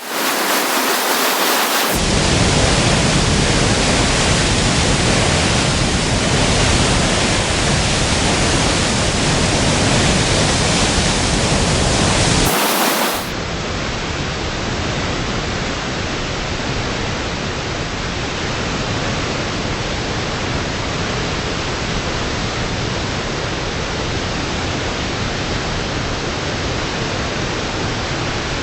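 Water thundering through the Grenada Lake spillway, a loud, steady rush with no pauses. About 13 seconds in it turns abruptly a little quieter and duller.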